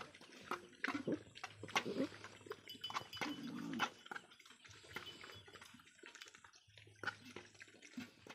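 Puppies eating and lapping from metal pots: a run of quick wet slurps and chewing clicks, with a few short low grunts from the dogs.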